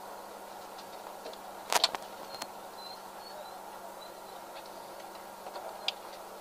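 Quiet inside the cabin of a stopped rally car: a faint steady hum with scattered light clicks, the loudest a sharp click a little under two seconds in.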